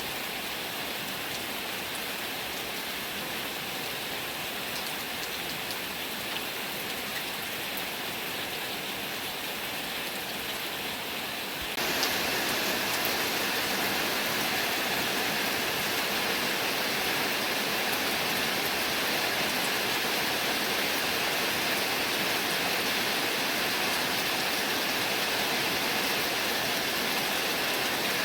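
Heavy rain pouring steadily, an even hiss of falling water. About twelve seconds in it jumps suddenly louder and brighter, then keeps on steadily.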